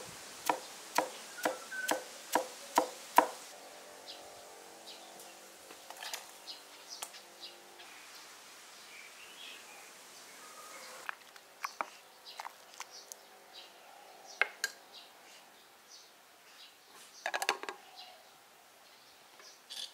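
Chinese cleaver chopping peeled Chinese yam into pieces on a round wooden chopping block: about eight sharp chops, roughly two a second, over the first three seconds. Quieter scattered clicks and knocks follow.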